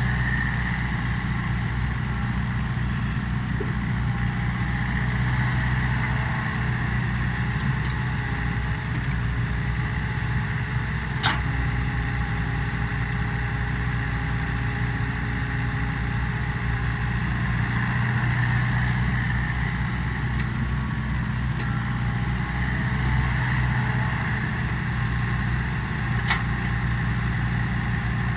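Diesel engines of a Komatsu crawler excavator and an Isuzu dump truck running steadily, with two brief sharp clicks, one a little before halfway and one near the end.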